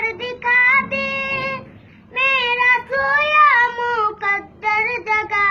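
A young boy singing an Urdu devotional song in praise of God, solo with no instruments, in long drawn-out wavering notes with a short breath about two seconds in.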